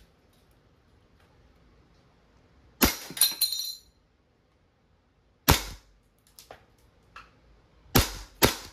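WE 1911 gas blowback airsoft pistol firing four single shots, each a sharp crack of the slide cycling: about 3 s in, 5.5 s in, then two quickly together near the end. The first shot is followed by a short metallic clinking and ringing as the BB strikes the steel spinner target.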